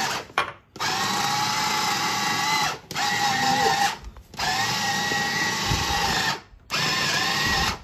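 Electric food chopper running in pulses to mince swordfish: a steady motor whine in five stretches of one to two seconds, with short breaks between them.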